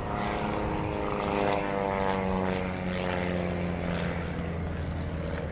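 Interstate Cadet light plane flying overhead, its propeller and engine note sliding steadily lower over several seconds.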